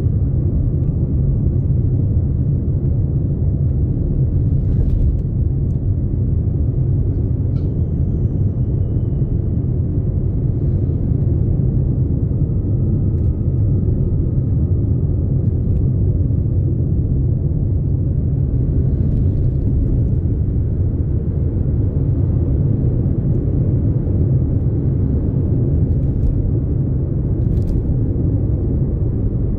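Steady low rumble of a car driving at road speed, heard from inside the cabin: engine and tyre noise with no pauses.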